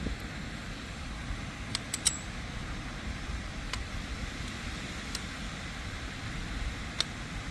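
Wind rumbling on the microphone over the sound of the sea, with a few sharp clicks: a quick cluster of three about two seconds in, then single clicks later on.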